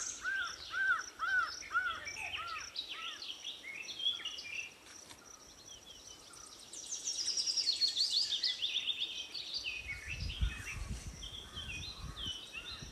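Several birds calling and singing: a run of evenly repeated arching notes at first, then assorted chirps, and a falling series of high notes about seven seconds in. A low rumble comes in near the end.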